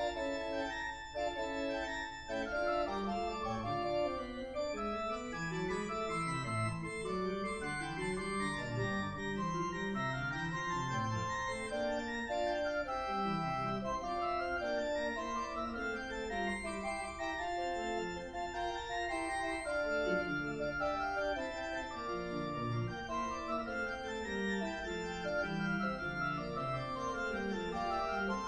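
Pipe organ playing a lively Baroque piece: several quick-moving lines over a bass line in the pedals, going on without a break.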